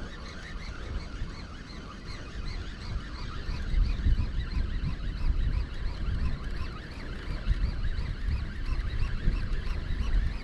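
Wind buffeting the microphone in an uneven low rumble, over a busy backdrop of many small, high chirps that keep on throughout.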